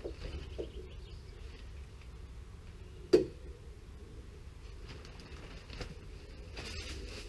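A roll of plastic breather membrane being handled, with one sharp knock about three seconds in and the membrane rustling and crinkling near the end.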